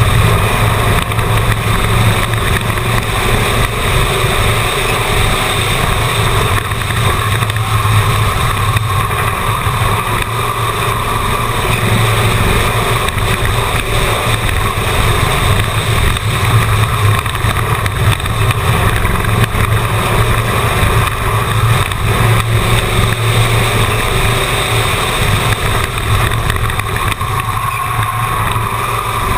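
Race car engine running hard and loud at a steady drone as the car laps an asphalt oval track.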